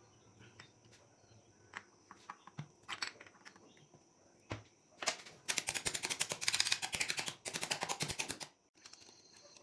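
Clicks and taps from workshop tool work, then a fast run of rapid clicking lasting about three seconds, starting a little past halfway.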